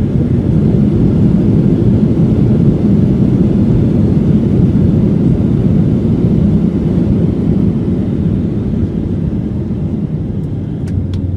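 Boeing 737-800's CFM56-7B engines in reverse thrust during the landing rollout, heard from inside the cabin as a loud, steady low rumble that eases off toward the end as the jet slows. A few light clicks near the end.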